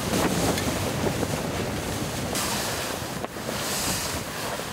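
Wind buffeting the microphone: a steady rushing hiss with a low rumble underneath.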